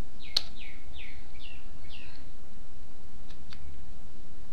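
A small bird chirping in the background: about five short falling chirps in the first two seconds. A single sharp mouse click about half a second in, and a couple of computer keyboard keystrokes near the end, over a steady low hum.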